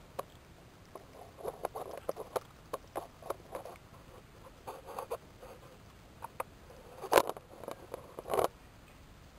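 A hand digging and feeling around in mud and dry twigs and leaves at the mouth of a small eel hole: a string of short, scratchy crackles and scrapes, with two louder rustles near the end.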